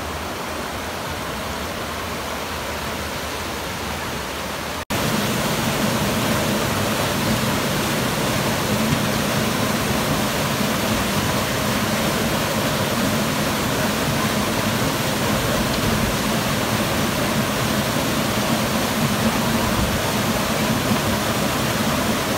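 Steady rushing water of Cat Creek Falls, a small waterfall pouring into a plunge pool. About five seconds in the sound drops out for an instant and returns louder and fuller.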